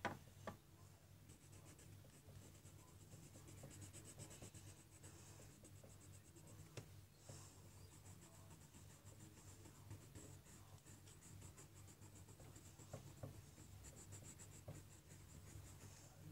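Faint scratching of a golden yellow coloured pencil on sketchbook paper, in many quick, short repeated strokes as hair is shaded in, over a low steady hum.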